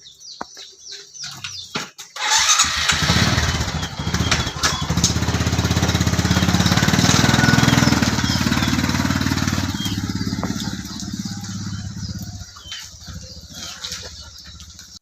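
Motorcycle engine catching about two seconds in and running steadily at speed, then easing off and fading near the end.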